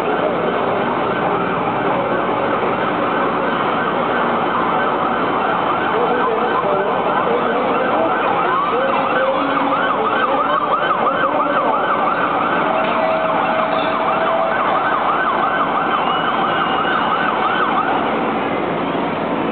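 Sirens of the motorcade's escort vehicles, starting about seven seconds in with a fast rising-and-falling yelp that stops a little before the end, over steady street noise.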